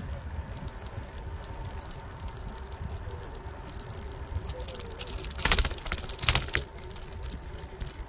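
Bicycle riding on a paved path, heard from a handlebar-mounted camera: a steady low rumble of tyres and wind. A little past halfway come two loud rattling jolts close together, as the bike frame and handlebar clatter over bumps in the cracked surface.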